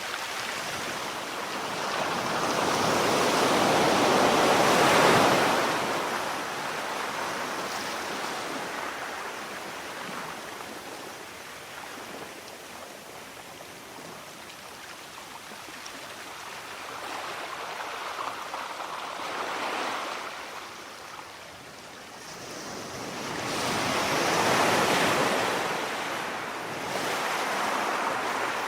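Sea waves breaking on a shore: a steady wash of surf that swells as each wave breaks and ebbs between, with two big breakers, one a few seconds in and one near the end.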